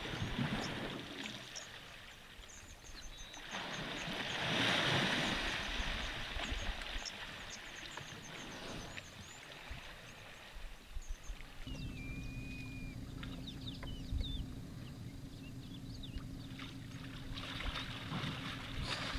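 An African elephant bull wallowing in a muddy waterhole, water sloshing and splashing as it rolls and heaves itself up, loudest a few seconds in. Birds chirp in the background, and a steady low hum joins about halfway through.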